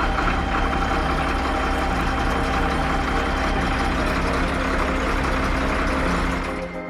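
A vehicle engine running steadily, fading out near the end.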